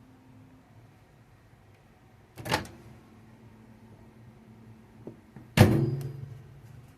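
Two knocks of kitchenware being handled on a counter, the second louder and ringing briefly as it fades.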